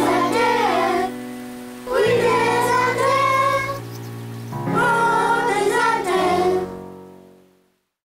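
A children's song sung by young voices over instrumental backing, in three sung phrases; the music fades out to silence near the end.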